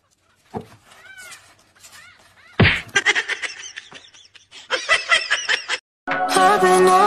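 Newborn kittens mewing with thin, high, arching calls, then a sudden thump about two and a half seconds in and a short run of rapid laughter-like bursts. Music starts near the end.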